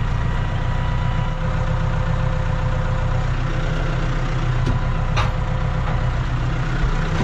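Tractor engine idling steadily, heard from inside the cab, with a short sharp click about five seconds in.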